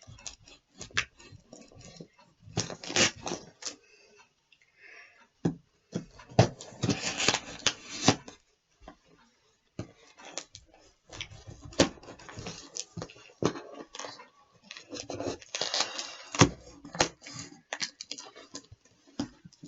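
A cardboard box and its packing being opened and handled by hand: irregular rustling and tearing with scattered clicks and knocks.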